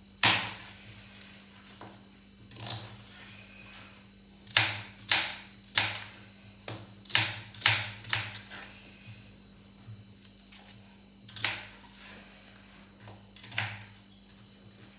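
Knife chopping red onion on a plastic chopping board: irregular knocks of the blade hitting the board, the loudest right at the start, some in quick runs of two or three and others a second or more apart.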